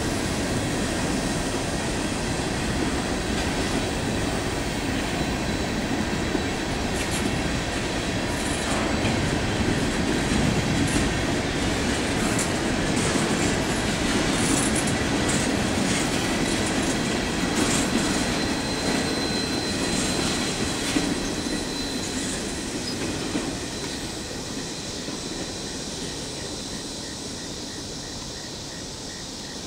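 Empty CSX coal hopper cars rolling past on the rails: a steady rumble of wheels on track with a thin steady wheel squeal and scattered high squeaks. The sound fades over the last several seconds as the cars go by.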